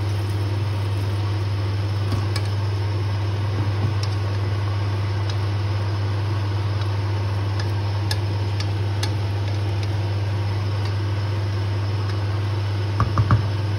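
Steady low mechanical hum, like a kitchen fan or appliance running, with faint clicks of a wooden spatula stirring pork in a pot of liquid. A few sharp knocks come near the end.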